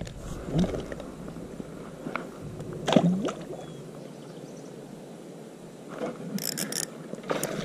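Small fishing boat on a pond with faint water movement and light knocks while a spinning rod is handled. There is a sharp click about three seconds in and a few brief scratchy sounds near the end.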